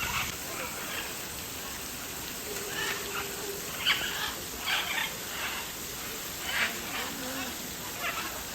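Short, sharp bird calls and squawks at irregular intervals, about a dozen in all, the loudest around the middle, over a steady background murmur.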